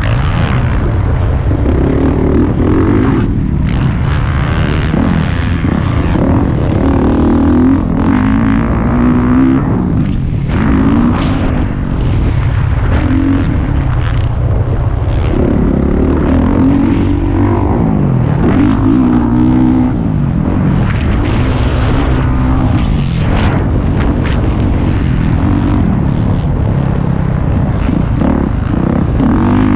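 Honda motocross bike engine revving up and down repeatedly as the rider accelerates, shifts and backs off, its pitch rising and falling every second or two. Heard from a camera on the bike, with wind noise over the microphone.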